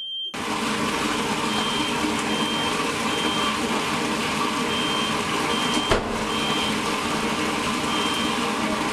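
Bathtub faucet running full into a filling tub, a loud steady gush of water. Over it, a smoke alarm beeps in groups of three short high beeps, and there is one sharp click about six seconds in.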